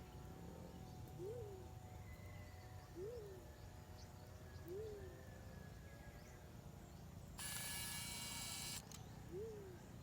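Four soft, low hoots from a black-chinned fruit dove, each rising then falling in pitch, spaced a second or two apart. A brief hiss comes about three-quarters of the way through.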